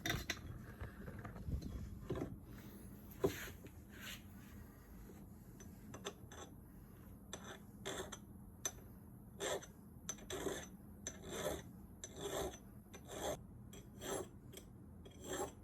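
Hand file rasping across the steel cutting edges of an old Milwaukee self-feed drill bit, squaring the edges up while sharpening. Short strokes, uneven at first, then settling into a steady rhythm of about one stroke a second from about halfway.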